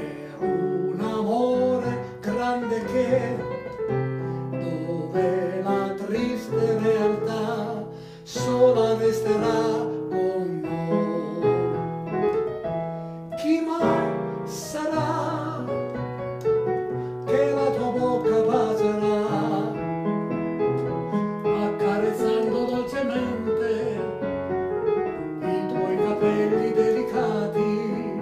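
Piano played with both hands in a slow song accompaniment: held low bass notes and chords under a melody line, with a brief pause about eight seconds in before a strong chord.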